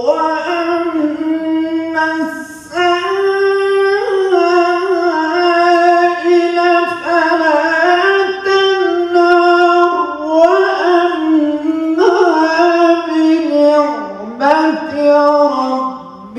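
A man's solo melodic religious chant through a microphone, long held notes bending in ornamented turns, with brief breaks between phrases.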